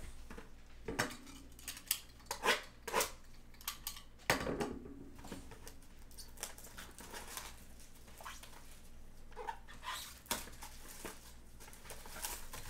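A dog barking several times in the background, most of the barks in the first half, over the clatter and rustle of a cardboard trading-card box and its plastic-wrapped cards being handled.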